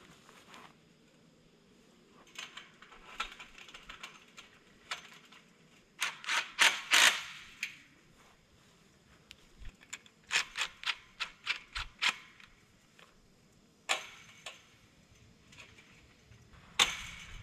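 Galvanized steel kennel frame pipe and chain-link fencing clinking and rattling as they are handled and fitted, in clusters of quick sharp metallic clicks, loudest about six to seven seconds in.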